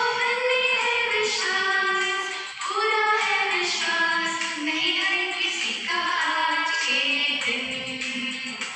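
A woman singing a prayer solo in slow, long-held notes, the melody gliding gently from note to note.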